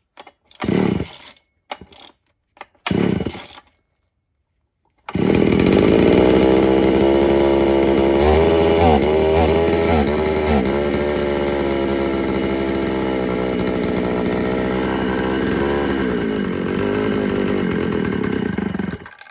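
Dayton 4Z251 (rebranded Poulan 3400) two-stroke chainsaw: two short bursts from starter pulls, then about five seconds in it catches and runs for roughly fourteen seconds, its speed wavering, before stopping abruptly near the end. It is running on a freshly reset carburettor, both jets opened to one turn.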